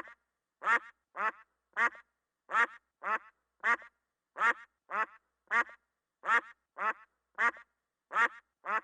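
A bird calling over and over: short calls about two a second, in an even rhythm of loose groups of three.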